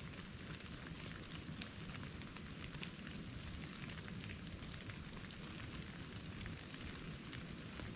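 Light precipitation falling on the surrounding branches, snow and clothing: a steady hiss made up of many small scattered ticks, with a low steady rumble underneath.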